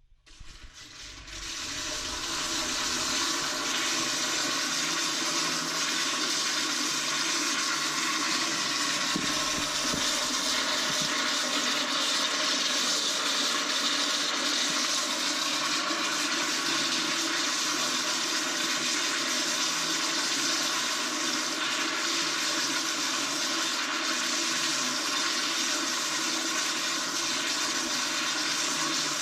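Toilet flushing on and on: a loud, steady rush of water that builds in over the first couple of seconds and does not stop.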